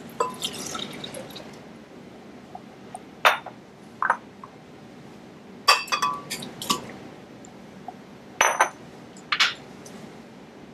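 Kitchenware being handled: a series of sharp clinks and knocks of glass and hard dishware. There is a busier patch of small clinks at the start, then single strikes spaced a second or two apart.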